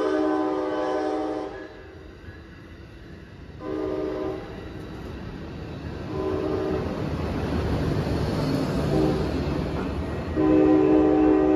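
Locomotive air horn sounding four chord-like blasts: a long one that ends about a second and a half in, a shorter one about three and a half seconds in, a brief one around six seconds, and a long one near the end. Between the later blasts, the rolling rumble of the train builds as it approaches and passes.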